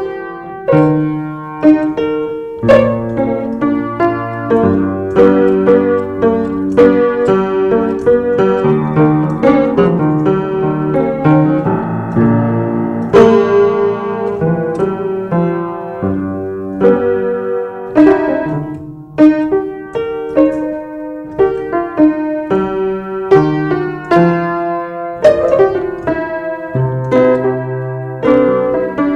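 Keyboard piano played with both hands: a steady flow of struck notes and chords over sustained low bass notes.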